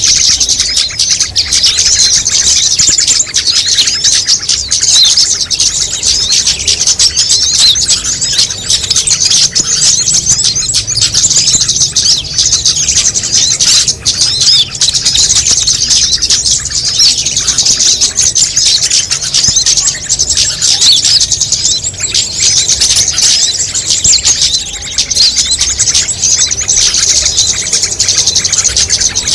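A dense, unbroken chorus of rapid high chirps and twitters from many small songbirds layered together: a combined bird-lure recording made to draw small birds in.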